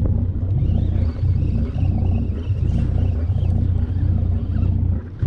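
Charter fishing boat's engine running with a steady low rumble, which dips briefly near the end.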